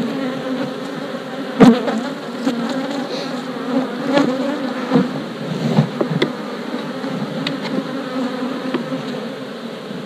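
Honey bees buzzing around an open hive, a steady hum, with a sharp knock about a second and a half in and several lighter knocks a few seconds later as the wooden hive boxes are handled.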